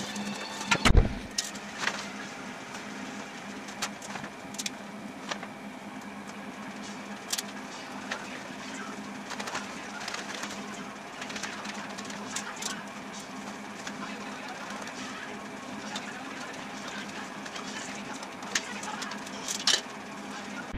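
Paper and cardboard being handled and cut with scissors: scattered sharp snips, clicks and rustles over a steady hum, with one heavy low thump about a second in as a cardboard piece is moved.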